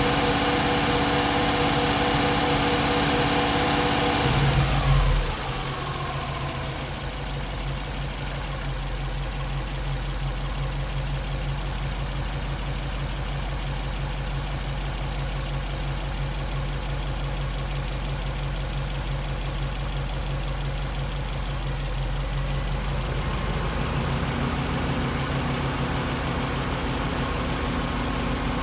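Subaru EJ207 2.0-litre turbocharged flat-four idling warm with the thermostat open; the owner suspects a failed head gasket or a crack letting combustion gases into the coolant. The electric cooling fan's hum cuts off about four seconds in and winds down, leaving the engine's low idle. A steady tone comes back near the end.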